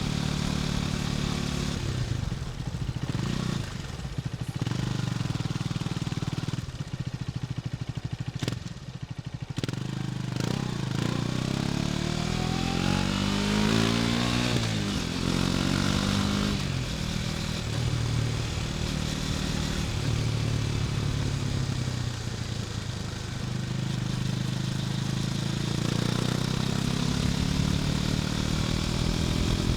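KTM 250 Duke's single-cylinder engine on the move. It runs steadily, eases off and goes quieter for several seconds, then revs up with rising pitch about ten seconds in, and settles to a steady cruise.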